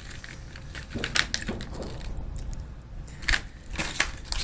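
MRE food packaging being handled and crinkled, a scatter of short crackles and clicks.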